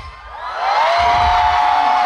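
Concert crowd cheering and screaming during a break in the music. A high note rises about half a second in and is then held.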